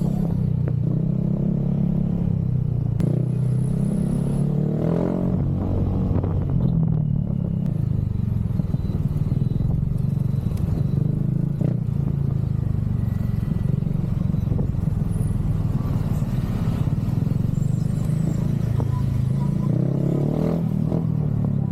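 Motorcycle exhaust running steadily with a low engine note, its pitch lifting and settling a little twice.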